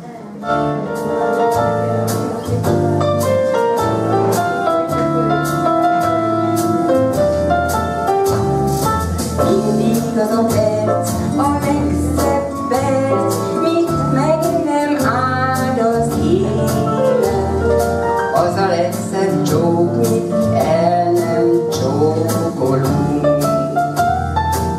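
Electronic keyboard accompaniment with a steady drum-machine beat starts about half a second in, and a woman sings a pop song (táncdal) over it through a microphone and PA.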